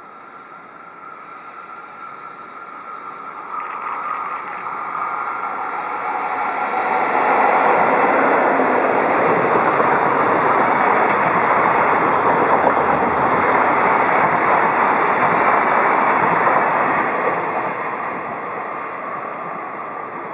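EF65 electric locomotive and its container freight wagons passing close by, wheels rumbling on the rails. The noise builds as the train approaches, stays loud for about ten seconds while the wagons go by, then fades as it moves away.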